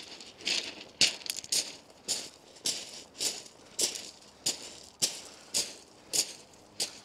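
Footsteps crunching on shingle: boots treading loose beach pebbles at a steady walking pace, a little under two steps a second.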